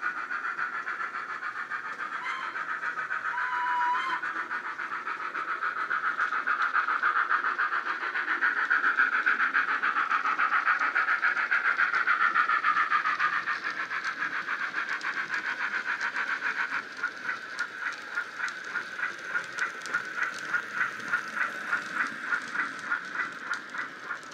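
Steam-locomotive sound from a LokSound 5 micro DCC decoder in a Bachmann OO-gauge Thomas the Tank Engine model, played through its small speaker. A steady steam hiss swells in the middle, then gives way about two-thirds through to regular chuffing of about two beats a second.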